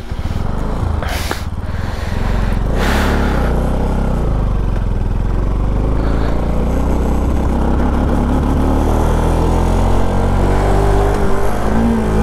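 Bajaj Pulsar NS200's single-cylinder engine pulling away and running under way, heard from the rider's seat. It gets louder about two seconds in as the bike picks up speed, then holds steady with small changes in pitch.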